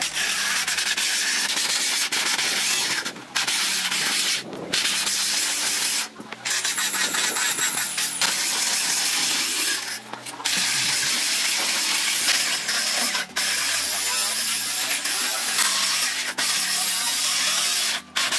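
Handheld electric angle grinder with a cutting disc trimming excess fiberglass cloth off the edge of a foam boat hull. The grinding noise is steady, with several brief breaks.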